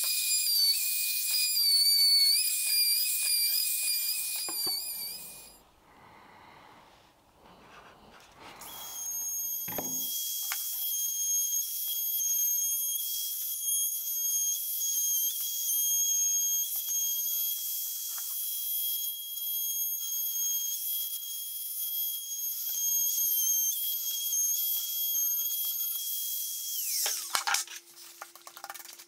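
Compact trim router running with a high whine while routing the edge of a curved wooden workpiece. Its pitch wavers under load for the first few seconds, then it goes quiet. It runs steadily again from about nine seconds in and winds down near the end.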